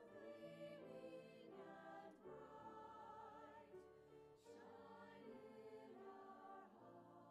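Small church choir singing, with long held notes and vibrato.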